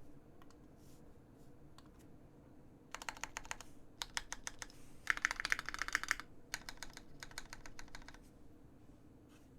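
Typing on a custom Alpine65 mechanical keyboard with a brass plate, lubed Marshmallow switches and GMK keycaps. A few faint isolated keystrokes, then fast flurries of key clicks from about three seconds in, densest around the middle, dying away about two seconds before the end.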